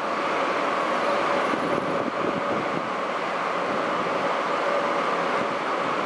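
Diesel locomotive's engine running steadily as it rolls slowly in, a steady drone with a faint pitched hum in it.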